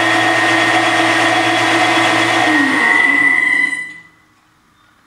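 Chester Craftsman lathe running under its VFD-driven three-phase induction motor, with a steady whine. About three and a half seconds in, it winds down quickly and stops, leaving only faint background sound.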